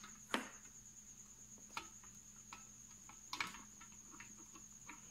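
Faint, scattered clicks and rustles of hands handling wires and a plastic electrode cover while connecting the wires of a glass neon tube, over a steady high-pitched whine and a low hum.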